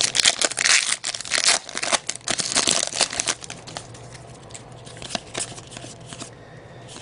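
A trading-card pack wrapper being torn open and crinkled, dense crackling for the first three seconds or so, then dying down to a few light rustles and clicks as the cards are handled.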